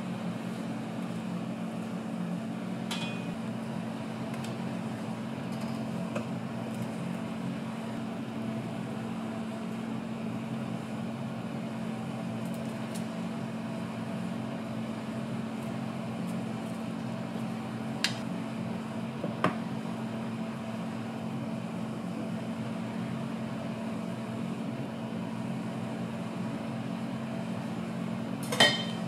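Steady low hum of running stall equipment, with a few short clicks and knocks of utensils on the counter and jar; the sharpest knock comes near the end.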